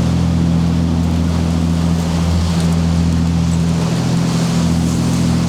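Steady low drone of a motor yacht's diesel engines running, with a constant wash of water and wind noise over it.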